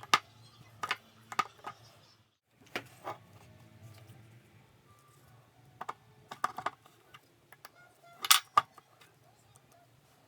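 A series of sharp clicks and knocks from small hard objects being handled and set down. They come irregularly, a few at a time, and the loudest pair falls about eight seconds in.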